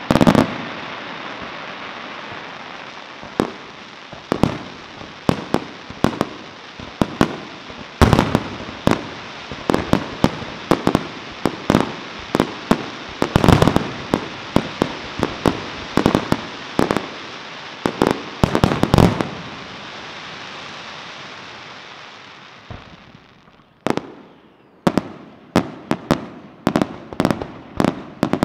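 An aerial fireworks display: many sharp bangs of bursting shells, some in quick clusters, over a continuous hiss. The hiss dies away about 23 seconds in, and separate bangs go on after a short lull.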